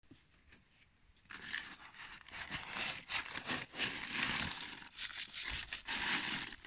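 Plastic scoop digging into a paper sack of mixed chicken-feed grain: grain rattling and rustling against the scoop and the crinkling paper sack, starting about a second in.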